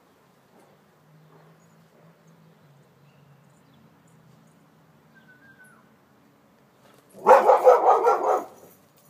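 A dog barking: a quick, loud run of barks lasting just over a second, near the end.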